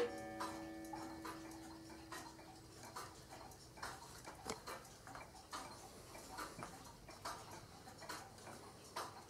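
Antique Black Forest cuckoo clock from about 1890 ticking faintly and steadily, roughly one tick a second. A ringing tone left from its cuckoo strike fades out in the first two seconds.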